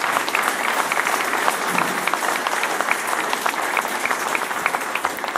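Audience applauding: many hands clapping at a steady level, stopping near the end.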